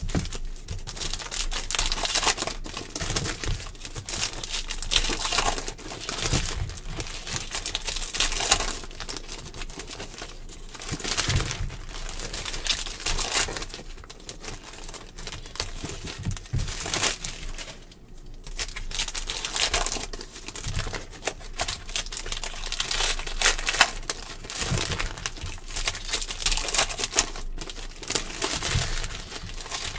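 Foil wrappers of 2020-21 NBA Hoops basketball card packs crinkling and crackling as hands open the packs and crumple the empty wrappers, a busy uneven rustle with many small sharp crackles.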